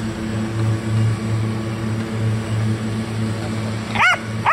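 A steady, low mechanical hum from a motor or engine. Near the end, a Belgian Malinois gives two short, high barks.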